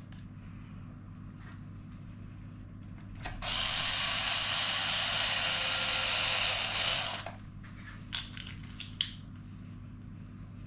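Small electric screwdriver running steadily for about four seconds, driving in a 2 mm screw, followed by a few light clicks of small parts.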